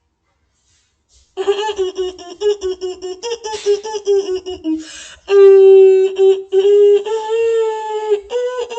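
A high-pitched voice laughing loudly, first in quick repeated bursts that slide down in pitch, then in longer drawn-out cries.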